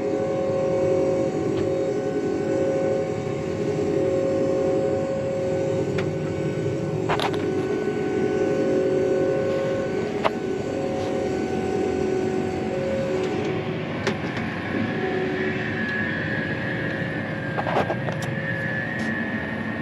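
Combine harvester running steadily from inside the cab while it is driven along a road, with steady whining tones over the engine noise and a few sharp clicks. A higher whine comes in about two-thirds of the way through.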